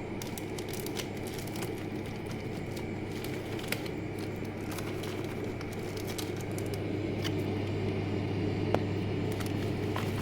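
Refrigerator running with a steady low hum, with scattered clicks and crackles over it; the hum grows slightly louder about seven seconds in.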